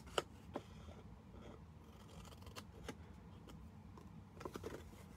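Small scissors snipping through patterned paper in a few short, sharp snips. The loudest snip comes right at the start, and a quick run of snips follows near the end.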